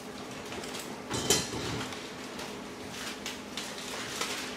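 Thin Bible pages being leafed through and rustled, with light handling clicks, the loudest about a second in, as the book is turned to 2 Thessalonians.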